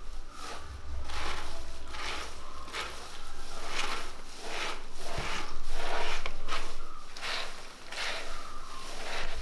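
Crisp fried snack mixture of fried chana dal and gram-flour pieces being tossed and stirred in a vessel: a dry, crunchy rustle in repeated strokes, roughly one or two a second, with a single sharp click about halfway through.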